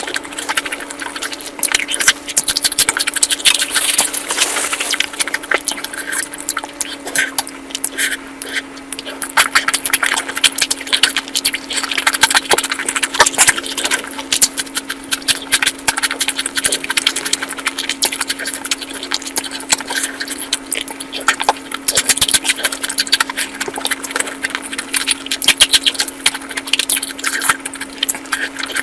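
Close-up eating sounds: a person chewing and smacking food, giving many quick, irregular clicks and crackles, over a steady low hum.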